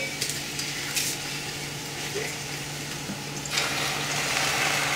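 Cubed eggplant frying in coconut oil in a glass saucepan, a steady sizzle. About three and a half seconds in, the sizzle grows louder and brighter as nama shoyu is poured into the hot pan.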